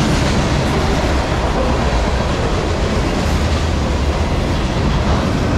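Freight cars of a CSX manifest train rolling past at speed: a steady, loud rumble and rattle of steel wheels on the rails.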